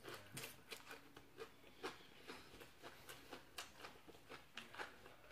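Faint chewing while eating: soft crunches and wet mouth clicks at irregular intervals, about two a second.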